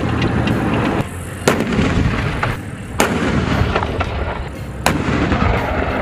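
T-34 tank's engine running hard as it drives, with three sharp bangs about a second and a half apart.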